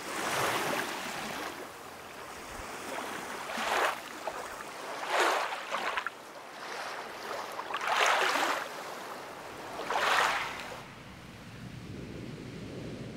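Small waves washing up over a sandy shore: five surges of foamy surf, a few seconds apart, over a steady wash of water.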